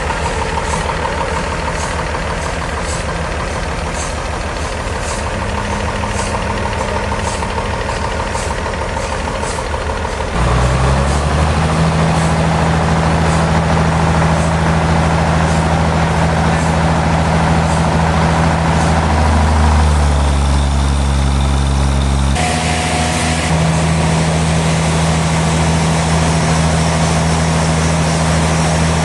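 Engine running just after starting: a low idle with light regular ticking, then it speeds up sharply about ten seconds in and runs on steadily at the higher speed. Its note shifts briefly around twenty seconds in and again a couple of seconds later.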